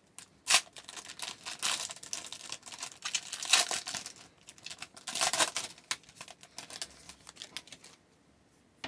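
A trading-card pack wrapper being torn open and crinkled, with the cards inside being handled. Several louder rustles come in a row, and the sound stops about a second before the end.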